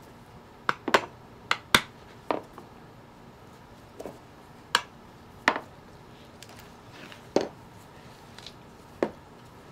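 Metal screwdriver clicking and knocking against the base of a deer's antler as the hide is pried loose around it: about ten sharp, irregular clicks, bunched in the first couple of seconds and then spaced out.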